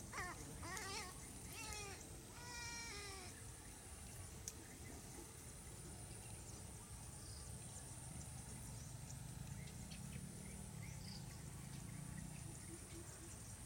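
Three harsh, bleating calls, each falling in pitch, in the first few seconds: the distress calls of a watercock caught in a trap. A steady high insect trill runs underneath.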